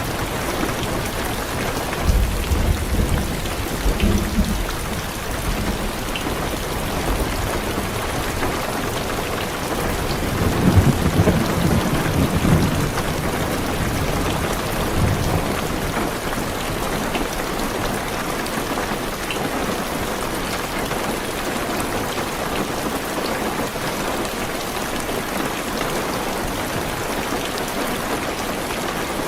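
Heavy rain falling steadily on a car's roof and windows, with thunder rumbling twice, about two seconds in and again about ten seconds in, the second roll the louder.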